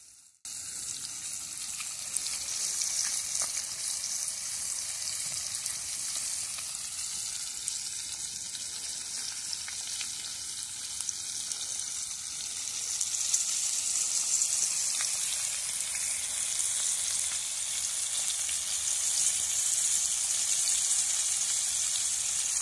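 Whole crucian carp frying in oil in a cast-iron pan: a steady sizzle with scattered small pops. It starts about half a second in and grows a little louder in the second half.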